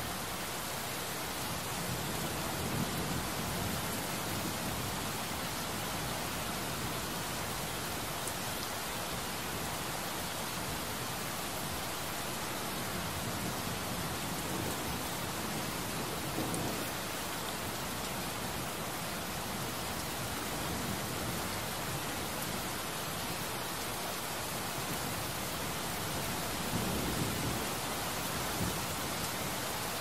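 Heavy rain pouring steadily, a dense even hiss of drops on a hard surface, with a few brief low swells.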